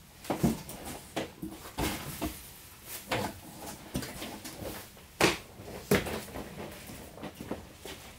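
Shirts being handled and laid out: irregular fabric rustling and shuffling with a few sharp knocks, the loudest just after five seconds in.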